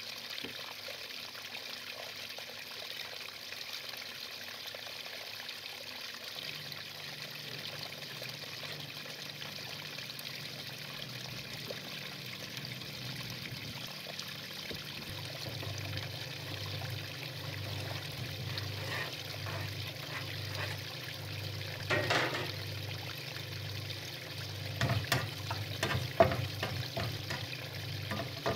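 Steady hiss with a low hum joining about a fifth of the way in. In the last third come several sharp knocks and scrapes of kitchen utensils, the loudest about three-quarters of the way through.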